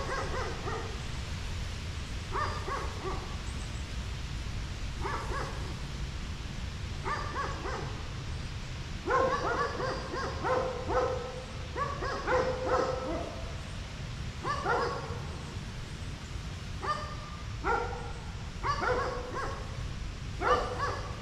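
A dog barking over and over in short runs, busiest from about nine to thirteen seconds in, over a steady low rumble.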